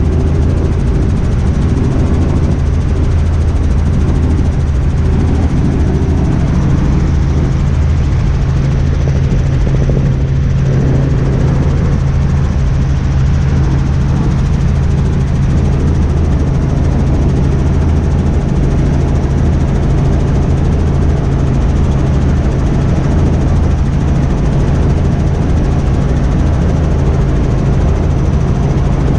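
Robinson R44 Raven II helicopter in cruise flight, heard from inside its cabin: a loud, steady drone of the six-cylinder piston engine and rotors with a constant low hum.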